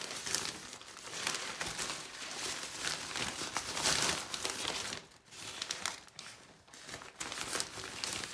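Packaging crinkling and rustling as it is handled and torn open to get at a graded comic book, in uneven bursts with brief lulls around the middle.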